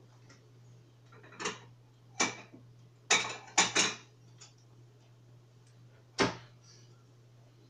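Kitchen clatter: about six sharp knocks and clinks of dishes being handled, the loudest a quick cluster of three, over a faint steady low hum.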